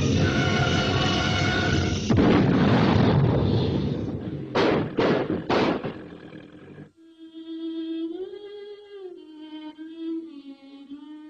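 Cartoon rocket sound effects: a loud steady roar, a sudden louder blast about two seconds in that fades away, then three short sharp whooshes. Near the middle the noise stops and a quieter held musical note takes over, wavering in pitch.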